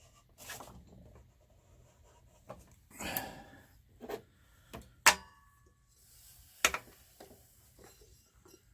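Hand-work on a belt sander's drive parts: scattered light clicks and knocks with a brief rubbing sound, and one sharp metallic clink about five seconds in.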